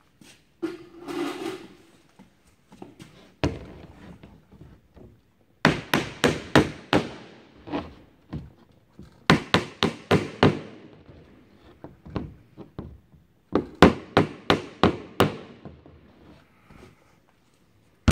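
Small hammer driving tacks through a newly fitted patch plank into a wood-and-canvas canoe hull. One knock, then three quick runs of about seven taps each.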